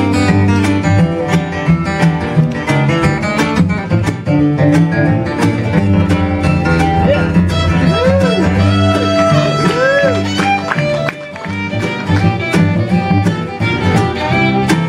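Acoustic string band playing a bluegrass-style tune live: strummed acoustic guitar, fiddle, mandolin and cello together, with a couple of sliding swoops in pitch about eight and ten seconds in.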